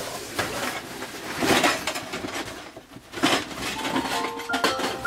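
Irregular rustling and light clattering in bursts, as of camp gear being handled. Background music with held notes comes in about four seconds in.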